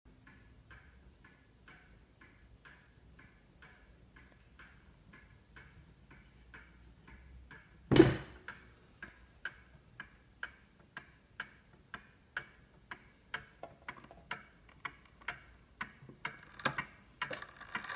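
Antique Ansonia gingerbread kitchen mantel clock's pendulum movement ticking steadily, about two ticks a second. A single sharp knock comes about eight seconds in, and after it the ticking is much louder.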